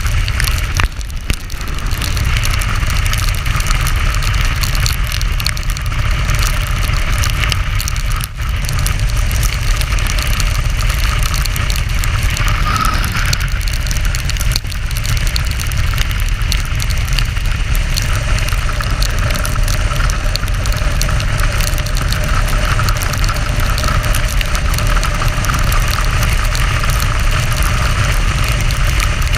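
Motorcycle riding at speed on a rain-soaked road: engine running steadily under a constant rush of wind and wet-tyre hiss.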